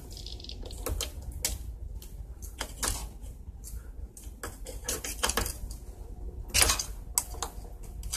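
A metal screwdriver clicking and scraping against the fuel-line fittings of a Stihl BG 65 blower's Zama carburetor as the fuel lines are pried off: a run of irregular clicks with one louder knock about two-thirds of the way through.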